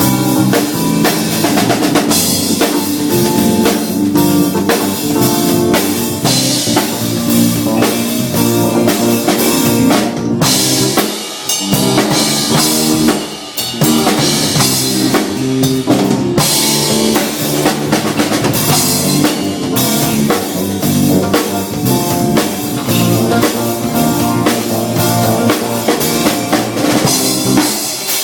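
Music driven by a full drum kit, with bass drum, snare and rimshots over pitched instruments, playing steadily; it dips briefly twice near the middle.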